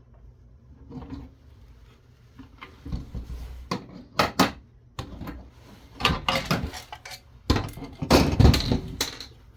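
Metal tools and parts clinking and clattering as they are handled on a workbench: irregular sharp knocks and clinks that start about three seconds in and come thickest in the second half.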